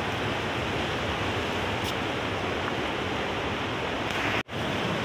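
Steady rushing of a fast mountain river, an even wash of water noise, with a split-second dropout about four and a half seconds in.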